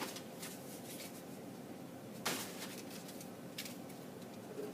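Faint handling noises from model-kit parts being moved about: a few soft rustles and taps, the clearest about two seconds in.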